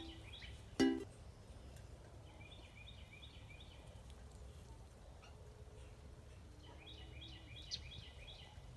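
Faint birdsong: a small bird sings quick, high chirping phrases three times over a steady low rumble. A single plucked music note sounds briefly about a second in.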